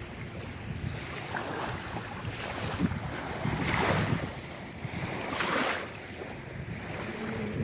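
Sea waves washing in, two louder surges near the middle, with wind buffeting the microphone as a low rumble.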